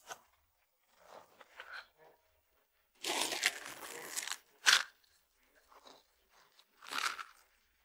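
Plastic wrapper of a dry-eat instant noodle snack torn open and rustled for about a second and a half, then crunching bites into the dry noodles, twice, the first sharp and loud.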